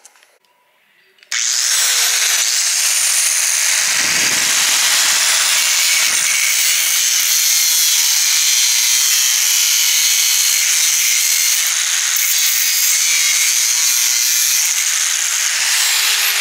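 Angle grinder cutting through double-wall stovepipe. It starts suddenly about a second in and then runs steadily, a harsh grinding hiss with a high, even whine.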